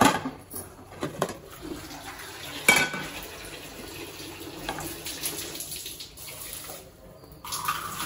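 A metal frying pan and a serving plate clattering together as an omelette is turned out onto the plate, with several sharp knocks in the first three seconds, then a quieter steady noise.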